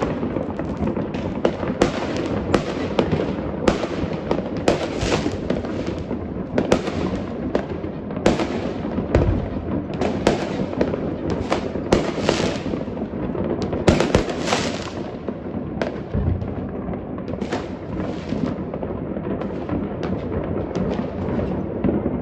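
Fireworks going off in a dense, continuous barrage: many sharp bangs overlapping a steady crackling rumble. The biggest bangs thin out about two-thirds of the way through, leaving mostly lighter crackle.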